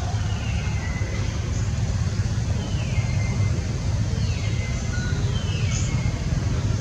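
Steady low outdoor rumble, with four short high calls that each fall in pitch.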